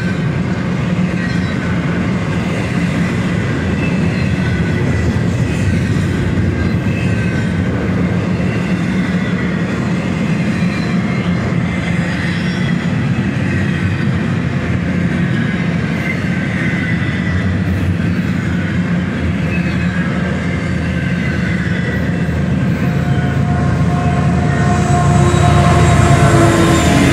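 A long double-stack freight train rolls slowly past with a steady rumble of wheels on the rails and faint wavering wheel squeal. Near the end a mid-train Union Pacific diesel locomotive passes, and the sound grows louder with its engine tones.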